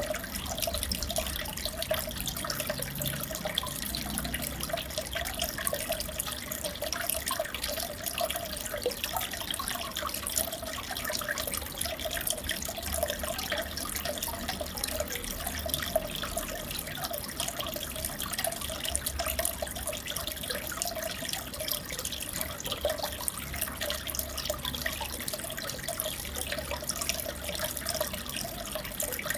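Steady trickling and bubbling of aquarium water, full of tiny drips and pops, with a faint low hum underneath.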